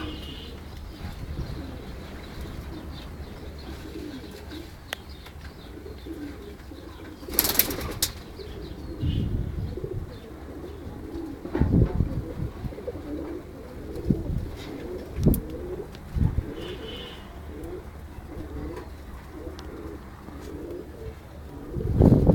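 Pigeons cooing over and over in low, short calls. A few louder short bursts of rustling or bumping break in, around a third of the way in, midway, and at the very end.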